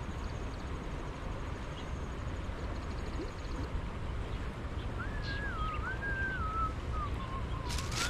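Small dog on the far bank whining in one long wavering cry from about five seconds in, over a steady low outdoor rumble of wind. Near the end a plastic bag crackles as it is handled.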